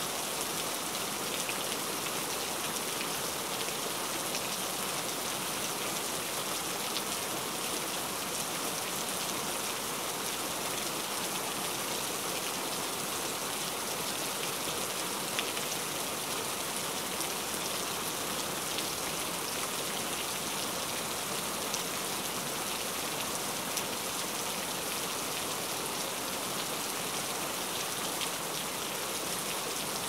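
Steady rain falling, a dense even hiss with an occasional louder drop ticking.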